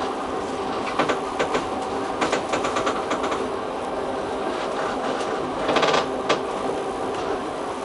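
Trieste–Opicina tram rolling down the track with a steady running noise. Its wheels clack over the rails in quick clusters about a second in and again between two and three seconds, with a brief louder rattle near six seconds.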